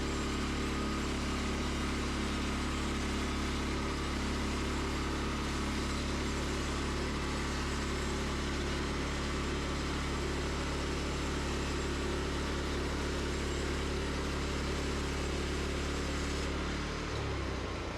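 Wood-Mizer LX25 band sawmill running steadily, its engine driving the blade through a small cedar log. Near the end the sound eases off as the run winds down.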